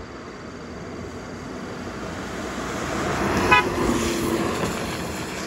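Toyota HiAce Premio minibus approaching and passing close by on a wet road, its engine and tyre hiss swelling. A short horn toot sounds as it goes past, a little over halfway through.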